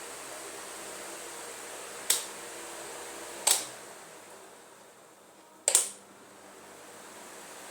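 Wall fan running with a steady whirr, and three sharp clicks of its switch. After the second click the fan sound slowly dies away as it winds down. After the third click it slowly builds back up as the fan spins up again.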